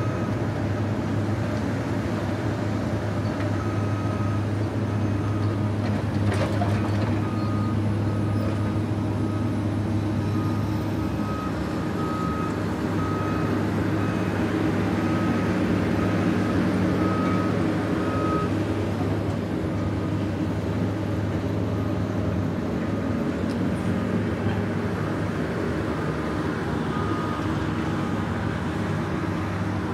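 Diesel engines of a Komatsu PC200 excavator and a compact track loader running steadily as they work the dirt, with a backup alarm beeping in regular short beeps, about one to two a second, for several stretches. A single knock sounds about six seconds in.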